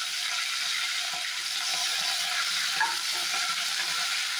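Hot oil in a kadai sizzling steadily with a high hiss, as the water in fresh curry leaves, green chillies and crushed garlic fries off. A ladle stirs near the end.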